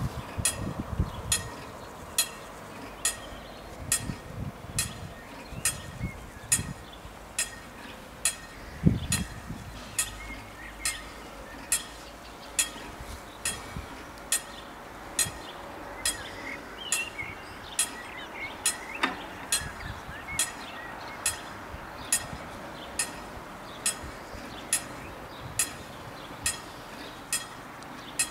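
Level-crossing warning bell striking in a steady, even rhythm, a little more than one stroke a second, warning road traffic of an approaching train. Birds chirp in the background.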